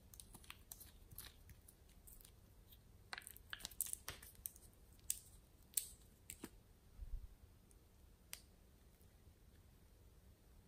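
Faint scattered clicks and ticks from handling a small glass nail-polish bottle and unscrewing its cap, with a cluster of quick clicks in the middle and a last single click near the end.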